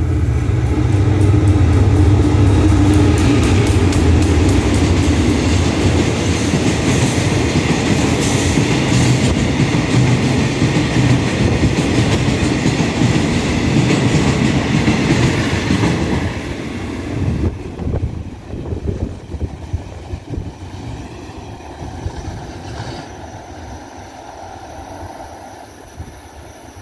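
Freight train passing: the diesel locomotive's deep engine drone comes first and is loudest, then the wagons roll past. About 17 seconds in, the sound drops sharply as the end of the train goes by, and it fades away.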